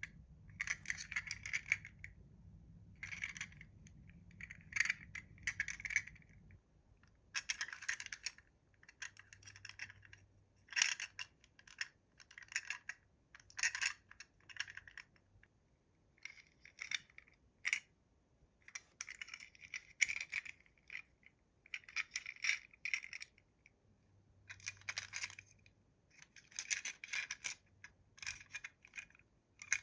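Toy packaging being handled and opened by hand: irregular bursts of rustling, crinkling and clicking from plastic and cardboard.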